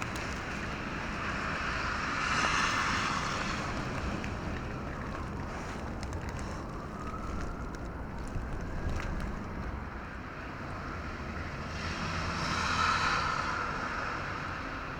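Outdoor street ambience in heavy snow: a steady rushing noise that swells twice, like vehicles passing with tyres hissing through wet snow, plus a sharp click at the very start.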